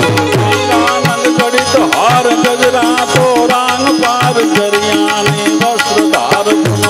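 Instrumental interlude of Gujarati santvani devotional music: tabla playing a quick, even rhythm under steady harmonium tones, with a melody line bending up and down above them.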